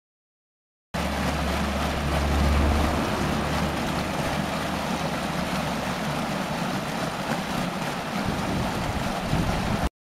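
Water rushing and splashing down a stepped concrete channel, a heavy flow of mountain runoff after a typhoon. It starts abruptly about a second in and cuts off just before the end, with a low rumble underneath for the first two seconds.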